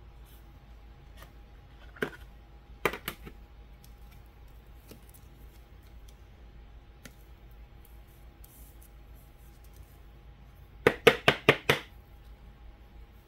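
Trading cards and packaging being handled by hand: a few sharp single clicks, then a quick run of about five clicks near the end.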